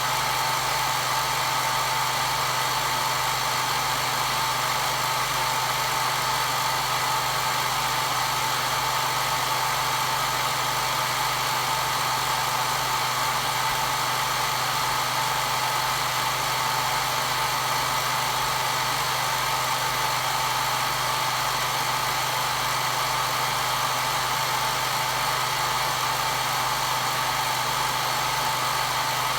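Hair dryer running steadily: rushing air with a constant mid-pitched motor whine, used as white noise.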